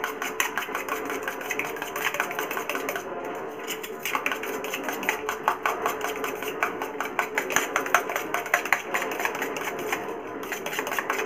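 Eggs being beaten fast with a spoon in a steel tumbler: a rapid, even rattle of the spoon clicking against the metal, easing briefly about three seconds in.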